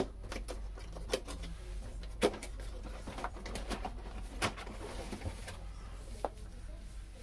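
Handling noise from a cardboard airsoft-rifle box: a handful of separate sharp knocks and clicks, the loudest at the very start and a little over two seconds in, over faint rustling.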